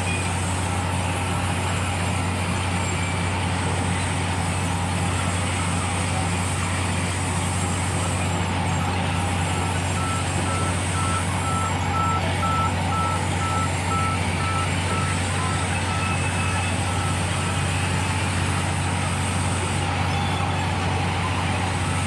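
Large band sawmill headrig running steadily as a log is sawn on its carriage: a constant low machine hum under an even rush of saw and motor noise. A series of short high beeps sounds near the middle.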